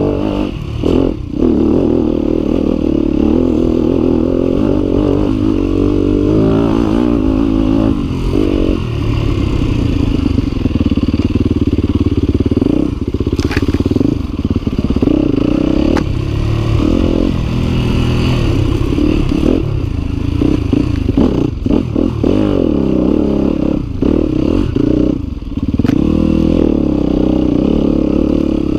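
Yamaha WR250F's single-cylinder four-stroke engine being ridden hard, its pitch repeatedly rising and falling as the throttle is worked on and off, with short drops where the throttle is shut.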